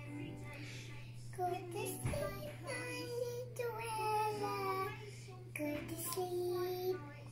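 A young child singing quietly in a high voice, a wordless tune of held notes that rise and fall.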